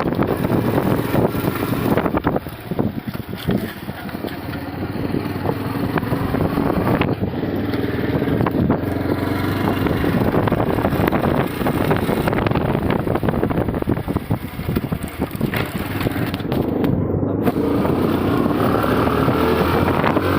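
Bajaj Platina motorcycle's small single-cylinder engine running as the bike rides along, with rushing noise over it. It drops back briefly a few seconds in, then picks up again and holds steady.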